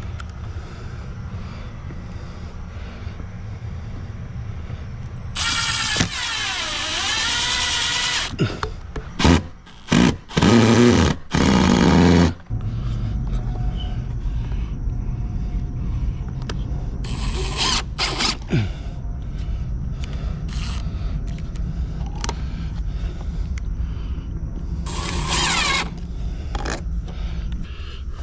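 Cordless drill/driver running in several short bursts as it drives screws to fasten conduit straps to a soffit, its motor pitch falling and rising with the trigger. The loudest runs come about ten to twelve seconds in, over a steady low rumble.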